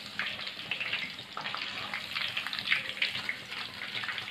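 Hot oil sizzling and crackling steadily in a deep pan as breaded chicken bites finish deep-frying to golden brown.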